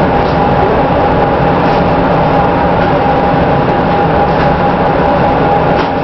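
Amtrak passenger train heard from inside the coach while running at speed: a steady rumble of wheels on the rails with a steady whine above it and a few faint clicks.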